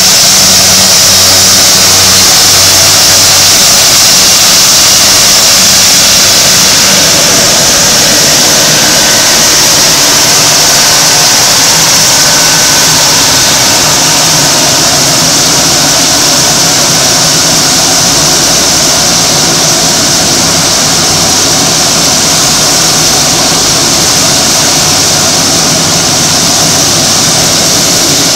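Shorts 360's twin Pratt & Whitney Canada PT6A turboprop engines running close by at low taxi power: a loud, steady high turbine whine over the low hum of the turning propellers.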